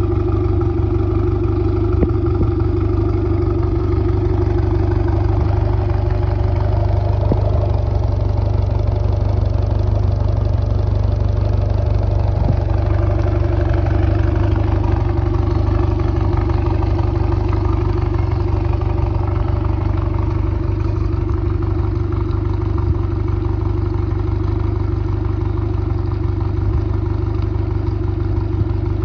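Mercury 90 hp outboard engine running steadily at a constant low speed.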